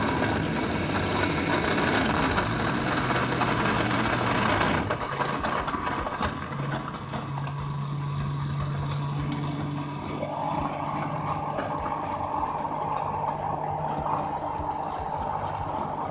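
Electric jug blender running at full speed, blending mango and peach pieces with milk. The coarse chopping noise smooths out about five seconds in as the fruit is puréed, and the motor's hum steps up a little in pitch soon after.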